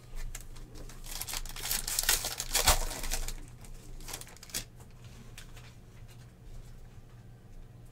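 Trading cards and plastic card sleeves rustling and crinkling as they are handled, loudest between about one and three seconds in, then a couple of light clicks and fainter shuffling.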